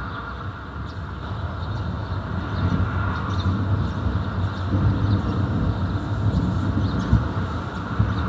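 Distant thunder rolling in a low, continuous rumble that grows louder over the last few seconds.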